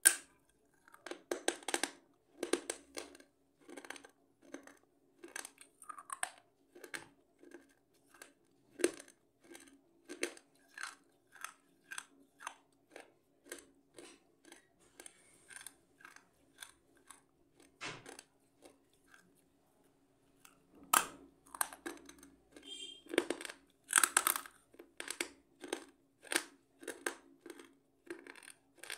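A chocolate-filled wafer roll being bitten and chewed: a sharp bite at the start, then crisp crunching chews about two a second. There is a short pause about two-thirds of the way through, then louder crunching resumes.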